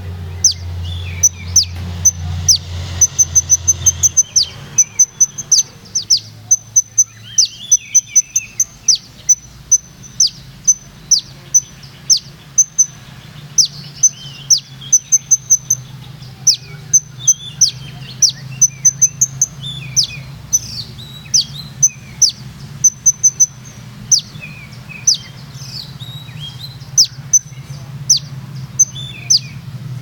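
Caged sunbird (the Indonesian 'kolibri ninja') singing: a fast run of high, thin, sharp notes, quick down-slurred whistles and short rattling trills, over a steady low background hum.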